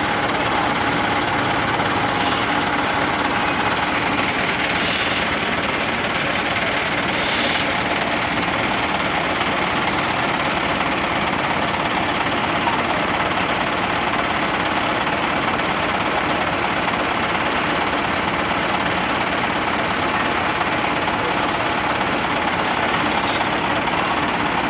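Medium bus diesel engine idling steadily.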